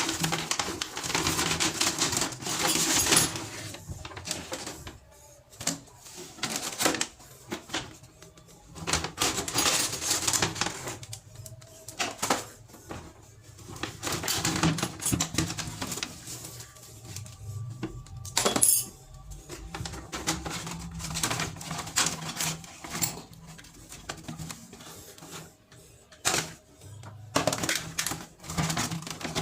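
Irregular clicking and rattling from hand work on plumbing fittings, with music underneath.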